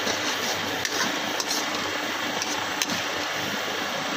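Tomato-based karahi sauce sizzling and bubbling in a metal wok while a spatula stirs and scrapes it, with several sharp clicks of the spatula striking the pan.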